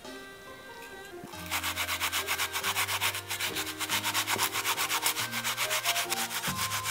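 An onion grated on a glass grater plate: rapid, even back-and-forth scraping strokes, starting about a second and a half in, over background music.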